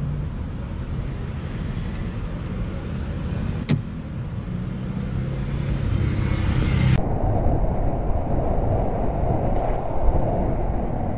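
Motorcycle engine idling as cars pass close by in the next lane, with one sharp click a few seconds in. About seven seconds in it cuts to the engine and wind noise of a motorcycle on the move.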